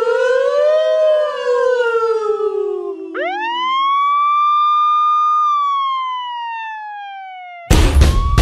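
Siren-like wailing tones as an intro effect: one wail swells and sinks over a few seconds. A second climbs quickly, holds and slowly winds down, until loud drum hits come in near the end.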